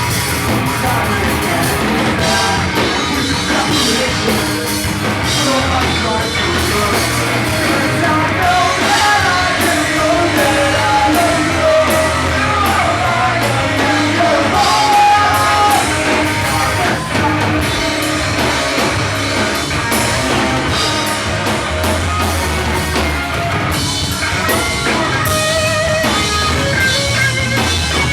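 Pop punk band playing live: guitars and drum kit, with a sung vocal line carrying through the middle of the song.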